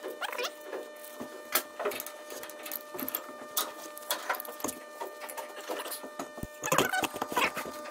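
Irregular metallic clicks, clinks and knocks of gloved hands and a wrench working a stuck valve on a stopped marine diesel engine, busier near the end, over a steady background hum.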